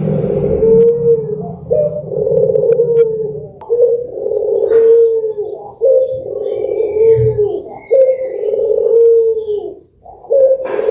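Ring-necked dove (puter) cooing in a steady series of low, drawn-out coos, a new phrase about every two seconds.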